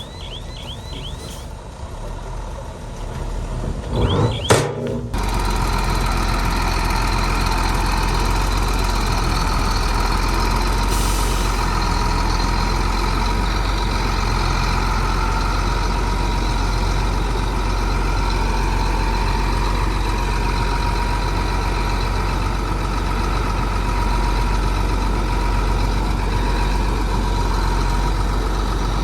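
Heavy diesel earthmoving machinery running steadily, with an even engine drone, after a brief loud noise and an abrupt change about five seconds in.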